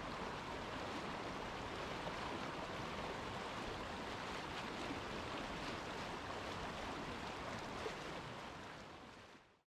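Steady rush of running water from a small river, fading out near the end.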